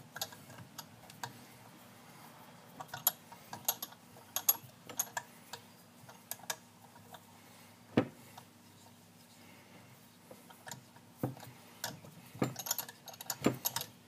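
Light metallic clicks and rattles of a T-handle tap wrench and tap turned by hand in a Stihl MS 260 chainsaw's screw hole, cutting threads for a Time-Sert insert. A duller knock comes about eight seconds in, and a few more follow near the end.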